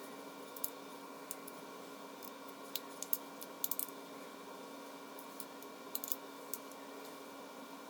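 Scattered light clicks and taps of small plastic parts and metal hardware being handled, irregular and bunched in a few quick clusters, over a steady faint hum.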